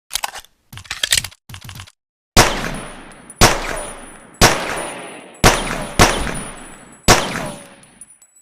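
Pocket pistol gunshot sound effect: a few short metallic clicks and rattles, then six shots about a second apart, each with a long echoing decay.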